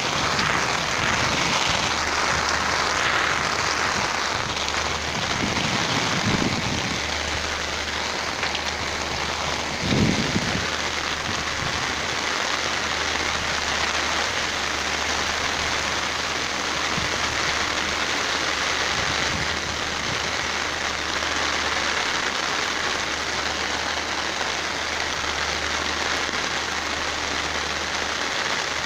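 Heavy rain falling steadily, a constant even hiss, with a couple of brief low thumps about six and ten seconds in.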